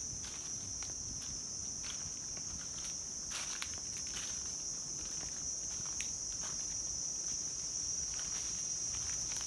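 A steady, high-pitched drone of insects, with irregular crunching footsteps on dry fallen leaves; the footsteps bunch up a few seconds in.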